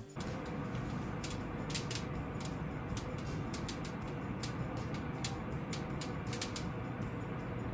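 Coffee beans at second crack in the oven: many faint, quick crackles coming consistently at an irregular pace, like a fire crackling in a fireplace, over steady background noise. Second crack is the roasting stage after first crack that signals the beans are close to done.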